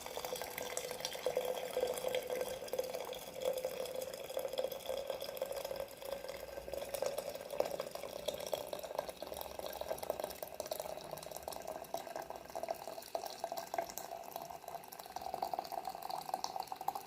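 Freshly boiled water poured steadily into a vessel, the pouring tone rising slowly as the vessel fills.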